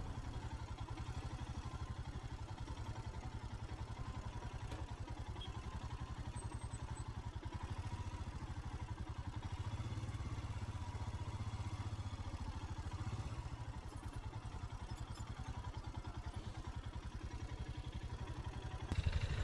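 Motorcycle engine running steadily at low revs, a fast even pulse of firing strokes in the bass.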